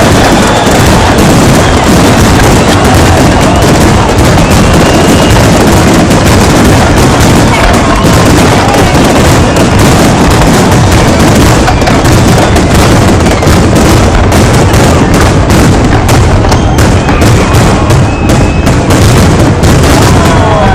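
Fireworks display, loud, with a dense, continuous barrage of bangs and crackling that grows thicker in the second half.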